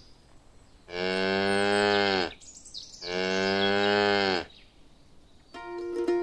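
A cow mooing twice, two long moos of about a second and a half each with a short gap between, dubbed over the scene as a sound effect. Light instrumental music begins near the end.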